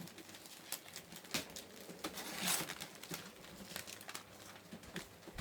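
Gift wrapping paper crinkling and tearing in short crackles and rustles as a present is unwrapped, with a louder rustle about halfway through.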